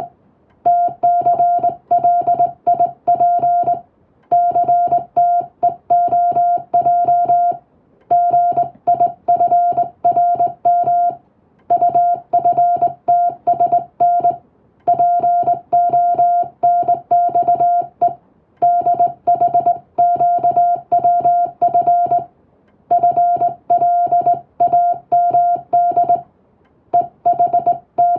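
Morse code (CW) hand-sent on a telegraph key as a steady beep of about 700 Hz, keyed in short and long elements. It comes in runs of a few seconds each, separated by brief pauses between word groups.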